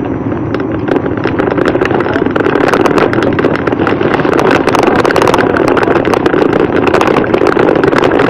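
Bicycle riding over a rough, unpaved lane: a steady rumbling noise with many small rattles and clicks from the bike, getting a little louder about three seconds in.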